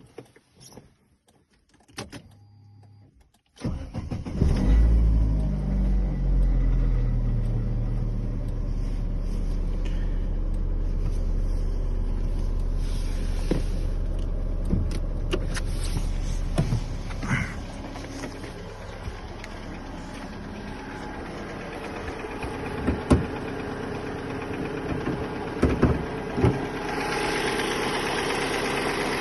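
Chevrolet Aveo T300 engine starting about three and a half seconds in, after a few clicks and a short hum, then idling steadily. Scattered sharp knocks sound over the idle: the engine knock and diesel-like clatter the owner is asking about.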